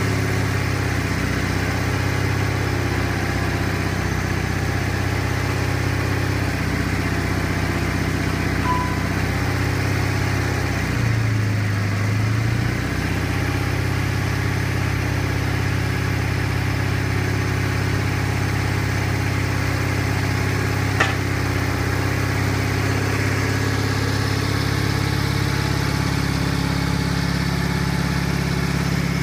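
Gravely 16G tractor engine running steadily. Its speed dips briefly about twelve seconds in and then recovers, and there is one sharp click about two-thirds of the way through.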